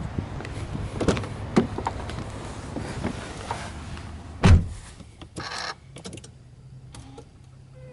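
Subaru Legacy B4 sedan's driver door being opened and handled with clicks and rustling as someone gets into the seat, then the door shutting with one heavy thump about four and a half seconds in. A faint steady low hum follows near the end.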